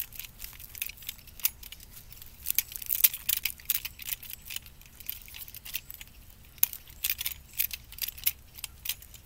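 Toy cap guns rattling and clicking as they are handled, spun and caught: a run of small, irregular metallic clicks, with a louder click about three seconds in.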